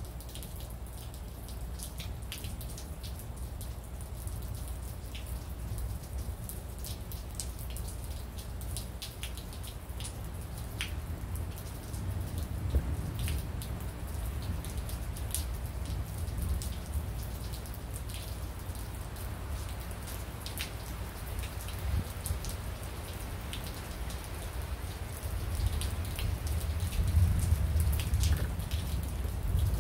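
Rain falling in scattered separate drops, heard as irregular sharp ticks close to the microphone, over a steady low rumble that grows louder near the end.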